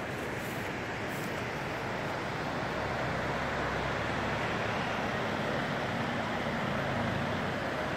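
Steady, even rushing of a fast, rocky mountain river.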